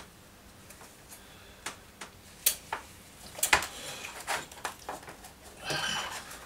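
Scattered light clicks and knocks of a hard drive in its metal mounting bracket being handled and worked at by hand, the sharpest knock about halfway through, with a short scraping rustle near the end.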